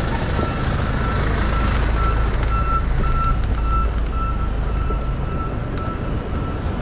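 A vehicle's reversing alarm beeping steadily, about two beeps a second, over the low rumble of street traffic.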